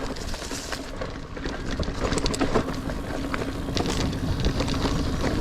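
Niner Air 9 RDO 29er mountain bike riding over dirt singletrack: steady tyre noise with frequent clicks and rattles as the bike goes over bumps.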